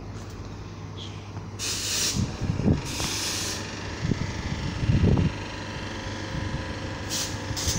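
Class 319 electric multiple unit moving alongside the platform with a steady low hum and low rumbling, and two sharp hisses of released air about two and three seconds in.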